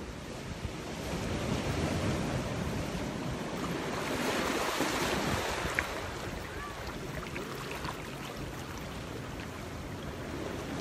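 Ocean surf and wind at a rocky shore, a steady rushing wash that swells louder around four to five seconds in as a wave breaks, with wind buffeting the microphone.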